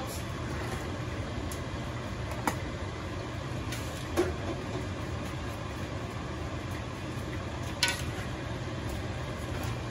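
A long utensil knocks against a large metal stockpot three times as vegetables are stirred in, the last knock near the end, over a steady low kitchen hum.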